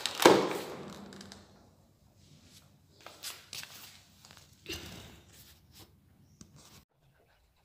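A loud knock close to the microphone, followed by scattered soft taps and rustling as a person moves and handles things beside the camera.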